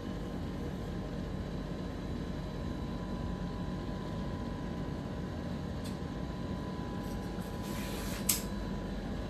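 Tailor's shears cutting through a length of fabric: a short swishing cut that ends in a sharp snip near the end, over the steady hum of a room air conditioner.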